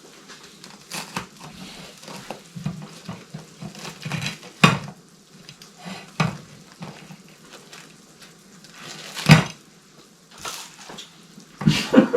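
Kitchen clatter: dishes and cutlery clinking and knocking now and then, with a few sharper clatters.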